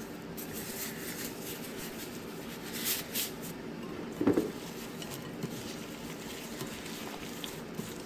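Plastic-gloved hand rustling and working in a glass mixing bowl of eggs, palm sugar and pandan leaves, with a couple of short knocks about three and four seconds in, over a steady low hum.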